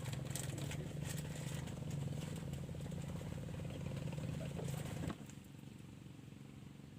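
A small engine running steadily at a constant pitch, which cuts off abruptly about five seconds in, leaving a quieter background.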